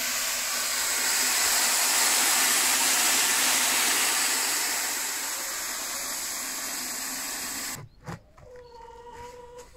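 Water from a garden hose spray nozzle rushing into a bucket, a steady gush that cuts off abruptly about eight seconds in, followed by a few light clicks and knocks.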